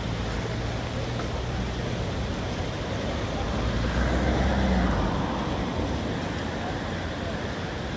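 Steady rush of river water pouring over a weir. Under it runs a low hum that swells about four seconds in and cuts off around five seconds.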